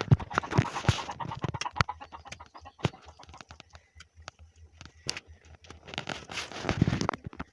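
Hands slapping and smearing a wet plaster of clay soil and cow dung onto a fireplace, a run of wet slaps and clicks with two busier spells, near the start and about six seconds in.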